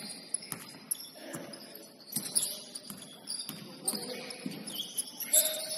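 Basketball dribbled on a hardwood gym floor, irregular sharp thuds a few times a second, with short high squeaks and brief player voices.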